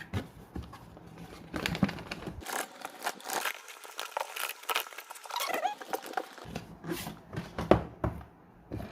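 Cardboard lens box being handled and opened by hand: irregular rustling, scraping and light taps, with one sharper knock about three-quarters of the way through.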